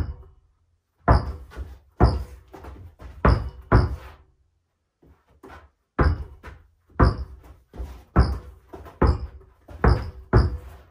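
A basketball being dribbled on a carpeted floor through crossover and behind-the-back moves: a string of dull bounces, often in quick pairs, about one to two a second, with a short break about four and a half seconds in.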